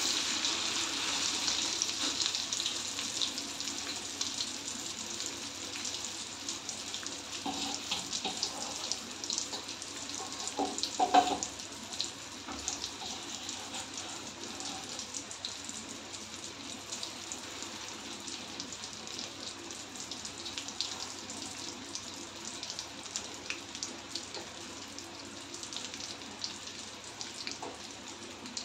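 Marinated chicken pieces deep-frying in hot oil in an aluminium kadai: a steady sizzle and crackle, strongest at the start just after a piece is lowered in, then easing off. About ten to eleven seconds in come a few short knocks with a brief ring, the loudest moment.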